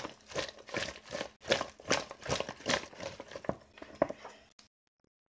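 Raw cauliflower florets tossed by gloved hands in a plastic bowl to coat them in an egg, milk and flour batter: irregular soft knocks, about two to three a second, that stop abruptly near the end.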